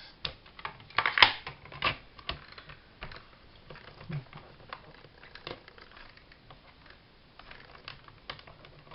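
Quick, irregular light taps and clicks of ink being dabbed onto a rubber butterfly stamp, loudest and busiest in the first couple of seconds, then fainter and sparser.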